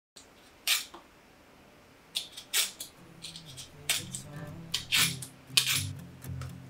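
A few sharp, short scraping strokes as the rind of a kabocha squash is peeled and sliced off with a peeler and a kitchen knife. Soft background music comes in about three seconds in.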